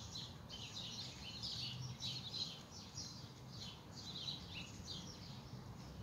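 Small birds chirping: a busy run of short, high chirps, two or three a second, over a low steady rumble of outdoor background noise.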